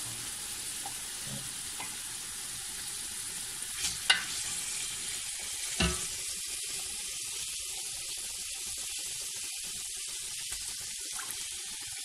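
Pre-boiled mutton pieces sizzling in hot oil and tomato-onion masala in a large aluminium pot, a steady hiss. A few sharp knocks of a metal ladle against the pots about four seconds in and again near six.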